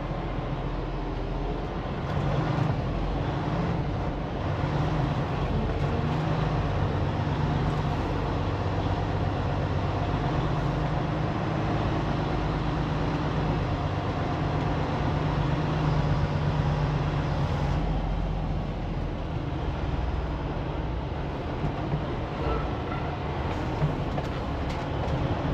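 Semi truck's diesel engine running with a steady low hum, the truck idling or creeping while being maneuvered. A few light clicks near the end.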